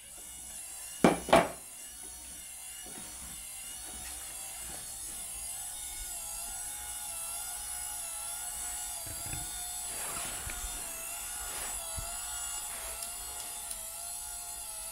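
Car windscreen wiper motor and its gearbox running steadily, turning the screw of a homemade electric bench vise so the jaw moves. It gives a whine whose pitch wavers a little, and it stops near the end. Two sharp knocks come about a second in.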